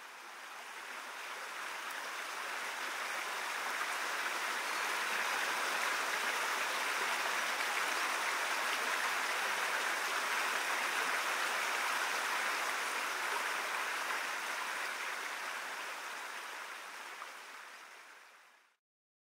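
Steady rain falling, an even hiss that fades in over the first few seconds and fades out shortly before the end.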